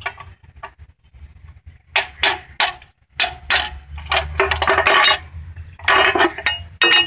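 Metal hand tools clinking and knocking against engine parts while bolts are undone, a quick series of sharp clicks and clatters. They start about two seconds in and come thickest near the end.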